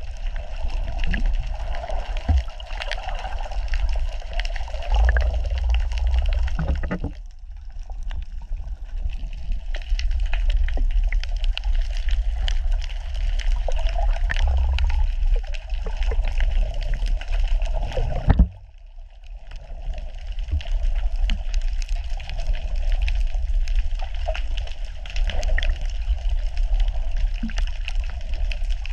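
Underwater sound through a camera's waterproof housing while snorkeling: a steady muffled rush and rumble of water with scattered crackles and clicks. It drops away sharply twice, about seven and about eighteen seconds in.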